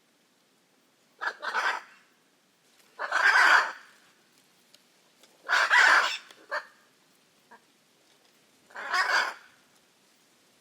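Hyacinth macaw giving four raucous, harsh calls, each under a second long and two to three seconds apart.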